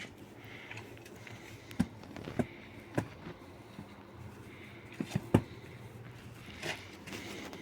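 A handful of short, sharp knocks and taps at irregular spacing, a quick cluster of three about five seconds in being the loudest, over a faint low background.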